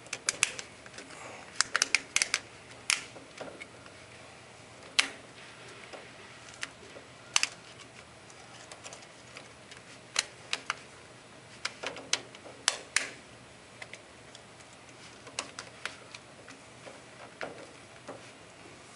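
Plastic cover being pushed onto a Rotopoint cabinet, its latches snapping into place: sharp plastic clicks and snaps, some single and some in quick clusters of two to four, spread at irregular intervals.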